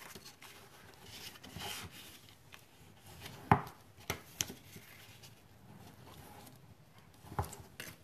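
Die-cut designer paper being folded along its score lines and creased with a bone folder: quiet rubbing and rustling of paper, with a few sharp taps, the loudest about three and a half seconds in.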